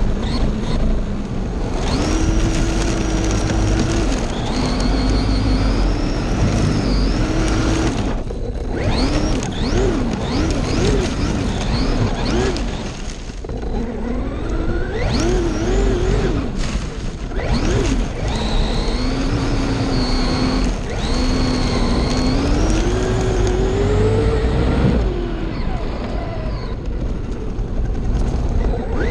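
Traxxas electric RC car running on a 3S LiPo with 18/54 gearing: its motor and gears whine, the pitch sweeping up and down over and over as it speeds up and slows, over a steady rumbling noise.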